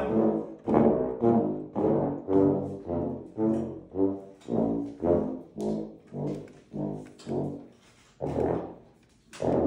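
French horns playing a warm-up run of short, separate notes, about two a second, with a brief pause and one last note near the end.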